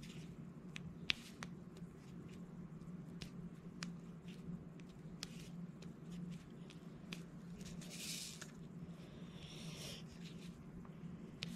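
Diamond-painting drill pen picking up and pressing small resin drills onto the sticky canvas: scattered light clicks, with a brief rustle about eight seconds in and another just after, over a low steady hum.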